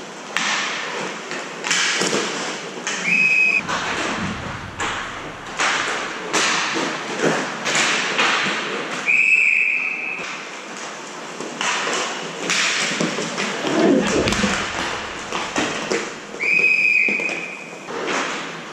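Inline hockey play: repeated knocks and thumps of sticks, puck and skates on the rink's plastic tile floor, with a referee's whistle blown three times, about three seconds in, in the middle, and near the end.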